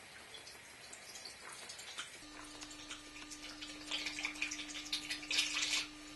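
Photographic bleach poured from a bottle through a plastic funnel into the camera's developing tank: a few small knocks and clinks, then a trickling pour that grows about four seconds in. A faint steady hum sits underneath from about two seconds in.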